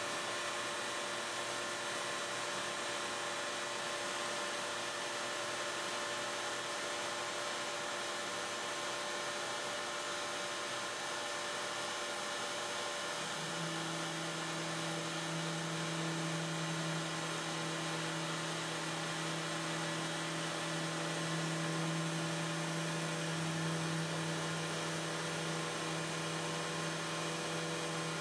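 CNC router spindle running steadily while a knurled ceramic-cutting bit grinds through a carbon fiber sheet: a steady hum and hiss, with a deeper hum joining about halfway through.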